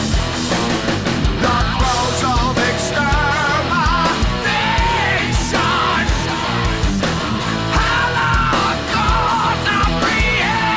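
Rock song with electric guitar, a steady drum beat and a singing voice that comes in about one and a half seconds in.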